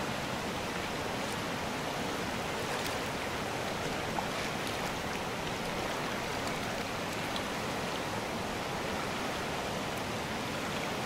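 Fast mountain river rushing over rocks and rapids, a steady even rush of water, with a few faint light clicks over it.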